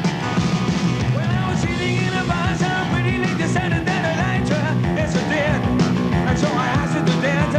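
Upbeat pop-rock band music: a saxophone over electric bass, guitar and a steady drum beat.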